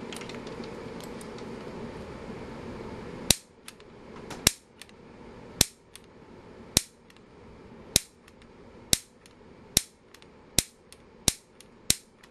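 Piezo grill igniter being fired again and again, each sharp snap sending a spark into a multimeter test lead. About ten clicks start a few seconds in, roughly one a second at first, then coming faster.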